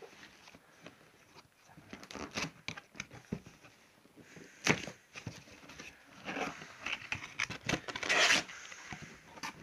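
Cardboard box and packing paper being torn open and rustled by hand, with scattered light knocks, one sharp loud knock about halfway, and a longer rip near the end.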